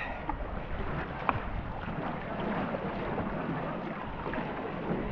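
Paddles of a tandem racing canoe stroking through river water, with water washing along the hull, and one sharp knock about a second and a half in.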